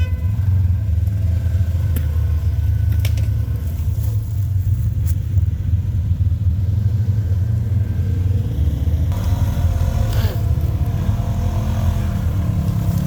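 Polaris RZR side-by-side engine running as it drives along a rough trail: a steady low rumble with a few knocks and clatters, picking up a little more revving about nine seconds in.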